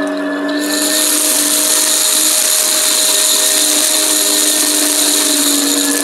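Shark upright vacuum cleaner running on a rug, its motor giving a steady whine. About a second in, a strong airy hiss of suction comes in and holds steady.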